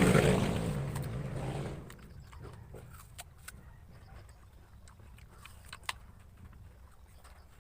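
A loud rumbling noise fades out over the first two seconds. It is followed by scattered sharp crunches of apples being bitten and chewed.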